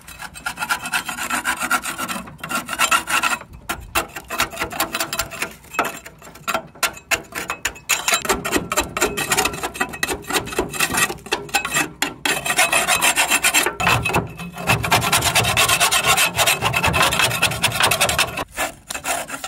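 QEP 6-inch steel flat margin trowel scraping dried, caked-on grass and dirt off the underside of a mower deck: a rough rasping in repeated strokes, with a few brief pauses between them.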